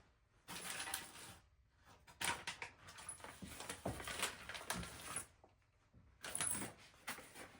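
Rustling and light clinking of small metal hardware, the toilet tank bolts, nuts and washers, being handled and sorted by hand, in three bursts with short pauses between.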